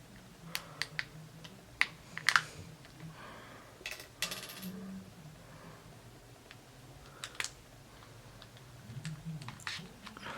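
Small plastic clicks and short scrapes from an Akaso action camera as its SD card and battery are taken out: a few sharp clicks, a brief scrape about four seconds in, and more clicks near the end.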